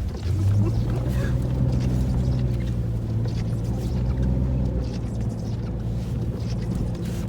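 Vehicle engine pulling steadily under load, heard from inside the cab while driving through deep snow: a steady low drone that settles a little after about five seconds.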